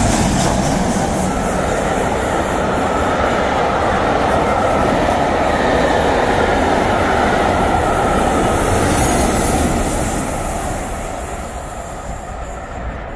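Steam-hauled passenger train led by LMS Jubilee class 4-6-0 No. 45596 'Bahamas' running through a station at speed: a steady rush of coach wheels on the rails, dying away over the last few seconds as the train recedes.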